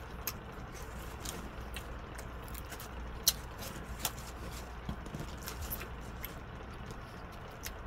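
Eating sounds: scattered small clicks, crackles and wet squishes of fingers pulling apart crispy fried chicken wings and of chewing, with one sharper click about three seconds in, over a steady low hum.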